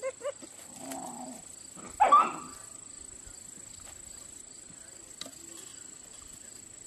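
German Shepherd puppies, about seven and a half weeks old, vocalising at play: two short yips at the start and one loud bark about two seconds in, then only faint background.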